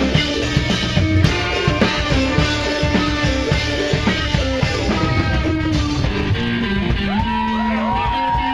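A band playing rock music with drum kit and guitar, the drums keeping a steady beat. From about seven seconds in, several held notes slide up and down over the groove.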